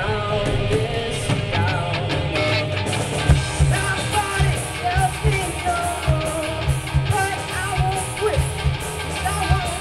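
Live rock band: a woman sings over electric guitars and a drum kit with a steady beat. The cymbals come in louder about three seconds in.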